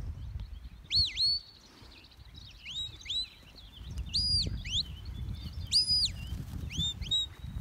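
Sheepdog handler's whistle commands: a string of clear whistled notes that each rise and fall, mostly in quick pairs, with two longer held notes in the middle, directing a border collie working sheep.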